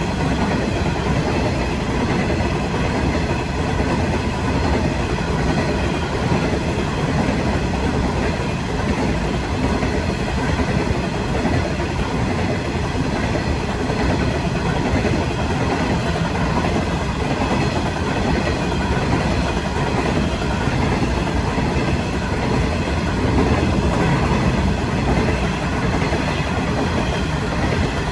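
Coal hopper wagons of a long freight train rolling past steadily, their steel wheels running on the rails in one continuous, unchanging noise.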